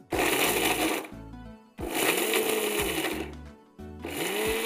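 Mixer grinder with a stainless-steel dry-grinding jar run in three short pulses, its motor speeding up and winding down each time as it grinds almonds, cashews, pistachios, melon seeds, fennel, poppy seeds, cardamom and peppercorns into thandai masala. It is pulsed rather than run continuously so the nuts grind to a loose powder instead of releasing oil and turning sticky.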